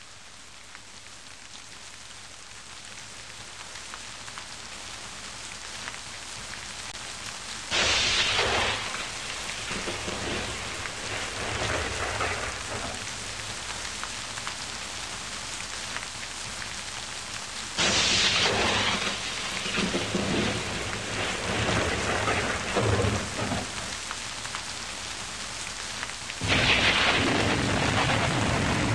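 Rain and thunder sound effects from a rain screensaver: a steady rain hiss that slowly grows louder, with three sudden thunderclaps about nine to ten seconds apart, each trailing off in a rumble over a few seconds.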